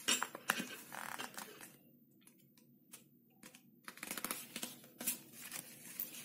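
A coloured paper sheet rustling and scraping as it is folded in half and the crease is pressed flat by hand against a tabletop, in two spells: through the first second and a half, then again from about four seconds in.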